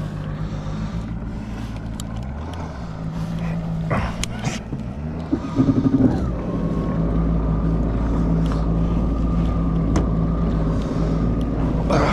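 Yamaha WaveRunner jet ski engine running steadily at low speed on the water. About six seconds in it picks up a little and then holds a steady, slightly louder note with a thin whine over it.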